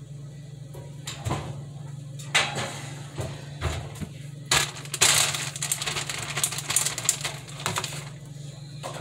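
Kitchen handling sounds as food is dished up: a few sharp knocks of cookware and utensils, then several seconds of crackly rustling.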